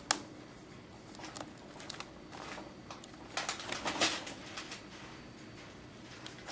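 Scattered taps and rustles in a small room: one sharp tap right at the start, a few light clicks, and a short run of scraping rustles about three to four seconds in.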